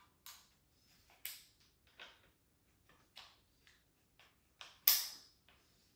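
A series of about ten light, sharp clicks and knocks at uneven intervals as a DeWalt DCG410 cordless angle grinder is handled, with one louder knock near the end.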